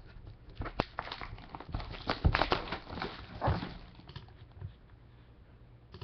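Cellophane shrink-wrap being torn and peeled off a sealed trading-card box: plastic crinkling and crackling, with a few knocks of hands against the box, the loudest a little over two seconds in. After about four seconds only faint handling is left.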